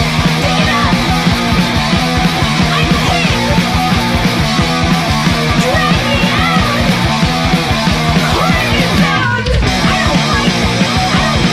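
Fast, loud hardcore punk band recording: distorted guitars, bass and driving drums. The band breaks off for a moment about nine seconds in before crashing back in.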